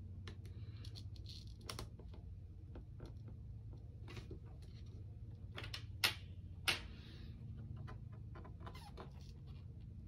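Small clicks, taps and scrapes of hands prying at an iPad LCD panel whose adhesive is still holding a corner down, with two sharper clicks about six and seven seconds in. A low steady hum runs underneath.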